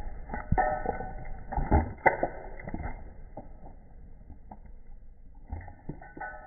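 An animal chewing shredded cheese: irregular small clicks and smacks, thicker in the first three seconds and sparser after, over a faint steady tone.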